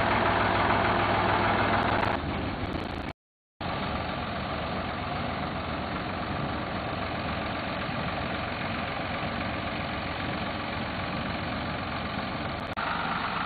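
Farm tractor engine running steadily. The sound changes abruptly about two seconds in, cuts out for half a second just after three seconds, and changes again near the end, where the footage is cut.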